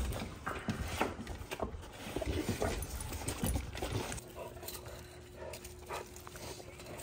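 Several Rottweilers making short, irregular eager noises at a gate as they wait for a bowl of raw chicken. The noises are busiest in the first half and quieter later.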